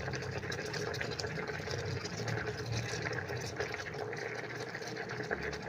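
Water with instant noodles boiling steadily in a small electric multi-cooker.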